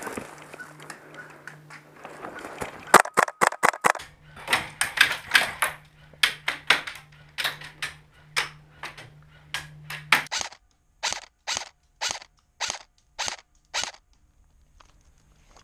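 Airsoft rifle fired shot after shot in sharp cracks. It starts with a quick run of about seven shots about three seconds in, goes on with irregular shots, then about eight evenly spaced shots, stopping near the end. Rustling through brush comes before the first shots.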